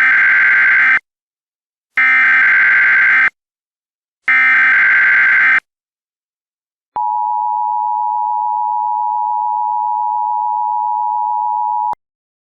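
Emergency Alert System SAME header: three loud bursts of warbling data tones, about a second each with a second's gap between them, followed by the EAS attention signal, a steady two-tone alert held for about five seconds that cuts off sharply. It marks the start of an emergency alert, here a law enforcement warning.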